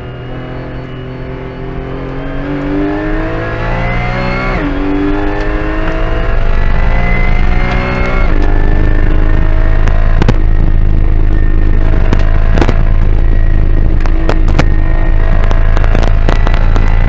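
Porsche Cayman GT4 Clubsport's naturally aspirated flat-six at full throttle, heard from inside the cockpit. It revs up through two upshifts, each a sudden drop in pitch, about four and a half and eight seconds in, then holds high revs over a heavy low drone. Several sharp clicks come through in the second half.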